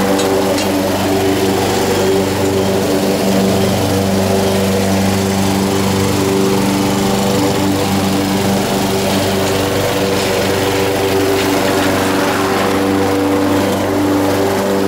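Honda HR194 walk-behind mower's four-stroke engine running at a steady speed while cutting grass.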